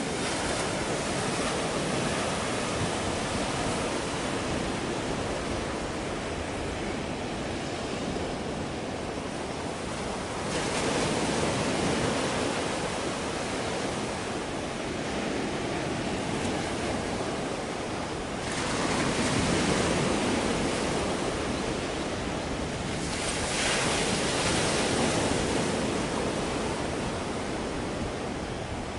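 Sea waves breaking and washing, a steady rushing wash that swells into louder surges about three times.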